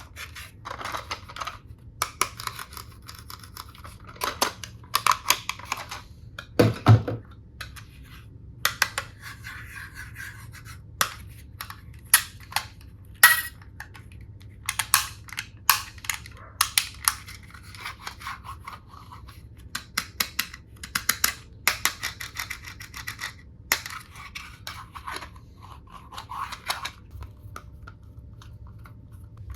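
Plastic toy tool pieces and packaging being handled: a run of sharp clicks, taps and scratchy rustles, with a louder knock about seven seconds in.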